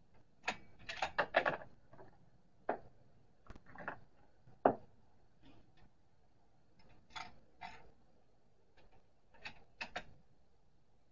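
Irregular sharp clicks and knocks of gear being handled at a shooting bench between shots: a quick cluster about a second in, a louder single knock near the middle, and a few more clicks in pairs near the end.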